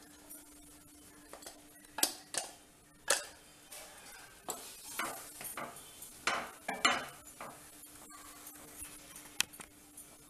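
A few sharp knocks, then a wooden spatula scraping and stirring fresh bread crumbs around a nonstick kadai as they roast in ghee.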